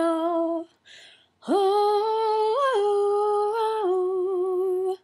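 A young woman singing unaccompanied: a held note tails off, and after a short breath she holds one long vowel for about three and a half seconds. The long note lifts briefly once and settles slightly lower near the end.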